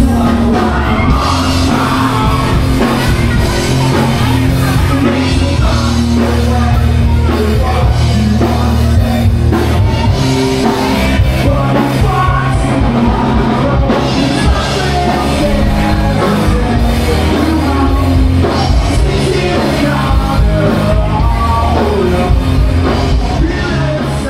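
Rock music with singing over a steady band backing.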